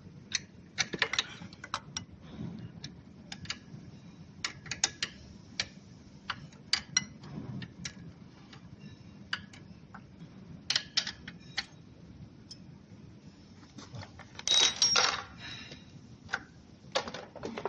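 Irregular sharp clicks and small metallic clinks of hand tools and loose hardware being handled, with a short, denser rattle about fourteen and a half seconds in.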